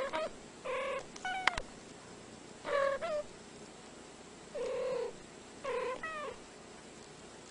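Short chirping meows from a domestic cat, about five in a row with pauses between, each bending quickly in pitch.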